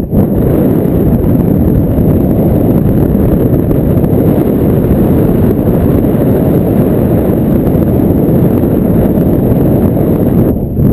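Loud wind buffeting the microphone of a head-mounted action camera, with airflow from flying under a paraglider in strong, gusty wind. It is a steady low rumble that eases briefly near the end.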